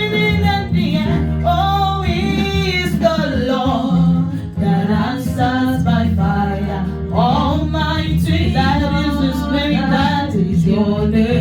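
A gospel worship song sung over backing accompaniment with steady held bass notes.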